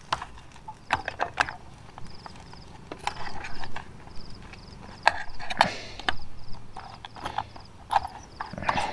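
A metal spoon scraping and clinking against a metal camping frying pan as noodle patties are pressed and turned, in irregular sharp clicks and short scrapes.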